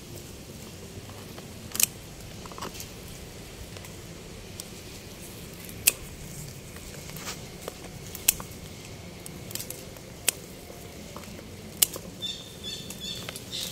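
Garden scissors snipping through fleshy purslane stems, several sharp snips a couple of seconds apart, with the rustle of the gathered stems being handled.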